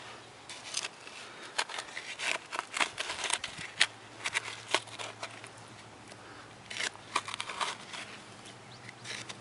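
Hand digger blade scraping and crunching into dry, gravelly soil in short, irregular strokes, in two spells with a pause between, as a metal-detector target is dug out.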